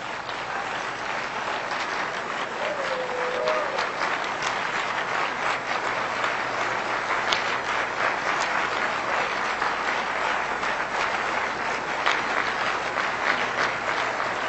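Large audience applauding: dense clapping that swells over the first couple of seconds and then holds steady.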